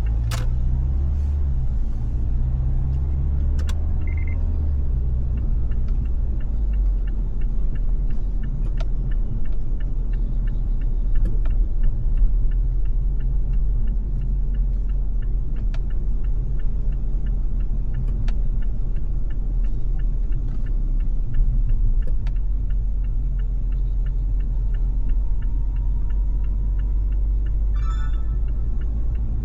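Car driving in city traffic: a steady low rumble of engine and road noise, with scattered faint clicks and a brief higher-pitched sound near the end.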